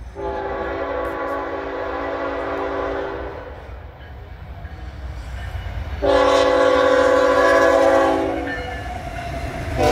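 Air horn of a CSX GE ET44AH locomotive sounding a chord in two long blasts, the second one louder, with a third starting near the end.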